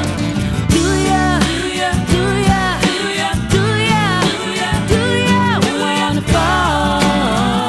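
A song playing, with a singing voice over a steady bass line.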